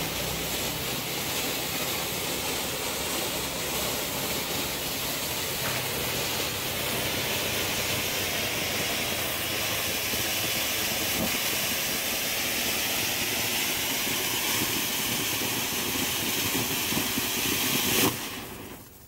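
'Cocktail Party' ground fountain firework spraying sparks with a loud, steady hiss. The hiss cuts off abruptly about eighteen seconds in.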